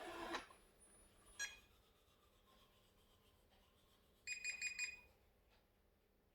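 Robot vacuum cleaner giving a quick run of high electronic beeps lasting under a second, about four seconds in, after a single click about a second and a half in. The beeps are the error alert of a faulty unit that shows a red indicator after starting.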